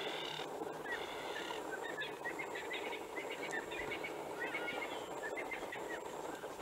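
Bush ambience at a waterhole: wild birds calling, two longer buzzy calls in the first second and a half, then many short chirps, over a steady background hiss.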